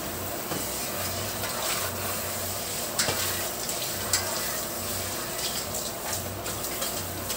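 Pork and chicken adobo simmering in a wide pan on a gas stove: a steady bubbling hiss of the boiling sauce, with two small clicks about three and four seconds in.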